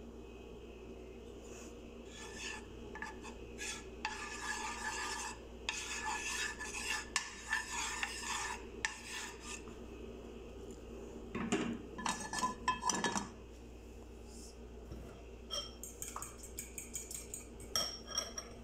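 Metal utensil clinking and scraping against dishes in several bursts, with sharp clicks near the middle and again near the end.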